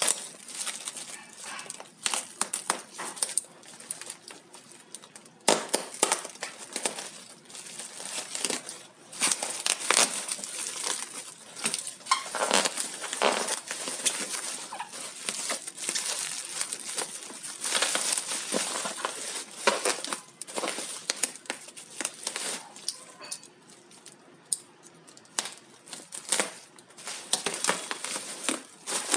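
Plastic packaging and bubble-wrap bags crinkling and rustling as a parcel is unwrapped by hand, in irregular crackles with short lulls.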